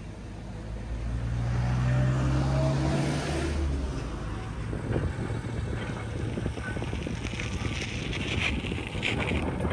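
A train's diesel locomotive engine revving up, its pitch rising steadily as the train pulls away. About four seconds in it gives way to the clatter and rattle of the cars rolling over the rails, with wind noise.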